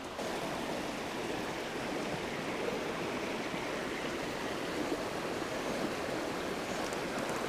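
Shallow rocky creek flowing steadily over stones.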